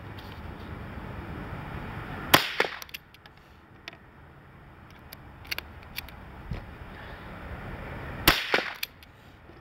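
Two sharp .22 LR rifle shots about six seconds apart from a single-shot bolt-action Crickett rifle, each trailed by a brief echo. Between them come small clicks as the bolt is worked and a fresh cartridge is loaded by hand.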